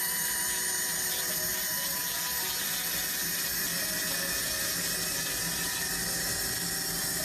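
Handheld fiber laser cleaning head removing rust from metal, its beam running on the surface with a steady, even hiss.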